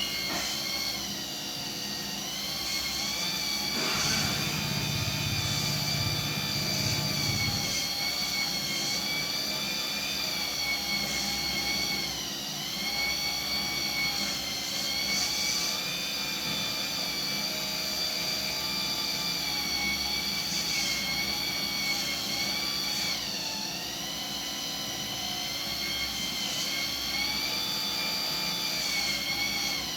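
Small electric motors of a homemade RC excavator whining steadily at a high pitch, the pitch sagging briefly a couple of times as the motors take load.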